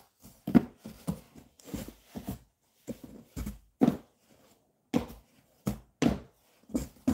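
Rummaging in a cardboard box: a string of irregular rustles and soft knocks as hardcover books are shifted and lifted out of the packing material.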